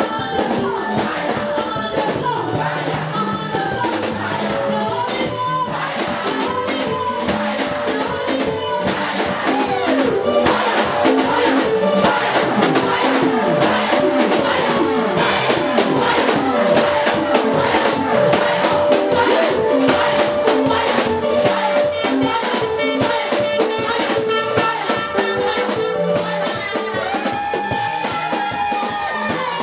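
Live music: a band with drums and percussion playing, with singing over it.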